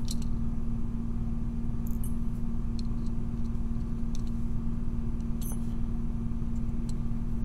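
A steady low hum runs throughout. A few faint, light metal ticks come from tweezers picking small pins out of a plastic pin tray and handling a dimple lock cylinder.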